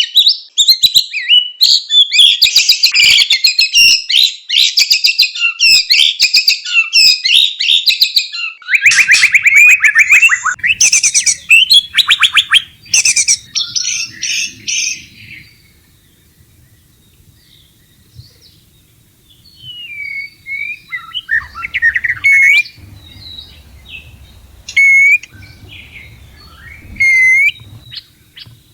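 White-rumped shamas in breeding condition calling: dense, fast chattering and rattling calls for about the first fifteen seconds, a pause of a few seconds, then separate clear whistled notes. These are the courtship calls played to caged shamas to bring them into heat.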